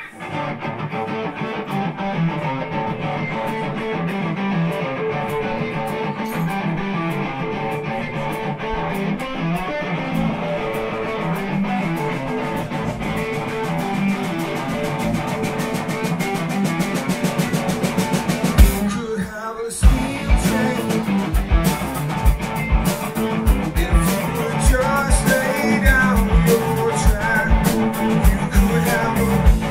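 Live rock band playing, led by electric guitar with a drum kit. About two-thirds of the way through the music breaks off for a moment, then comes back with heavier, regular kick-drum hits.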